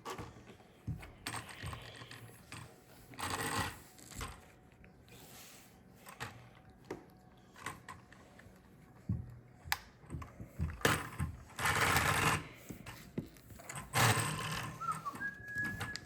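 Small plastic Lego pieces clicking and rattling as they are handled and pressed together, with louder bursts of rattling about three, eleven and fourteen seconds in.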